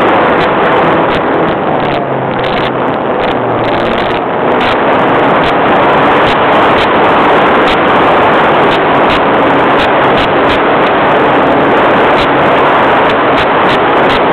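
Engine of an R/C model airplane running steadily, heard loud from a camera mounted on the plane in flight and mixed with wind rushing over the microphone.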